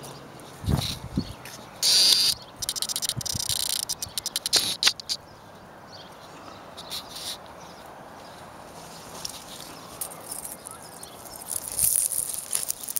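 Raspberry leaves and canes rustling and brushing against the microphone: a loud rustle about two seconds in, quick crackling until about five seconds, then quieter, with more rustling near the end.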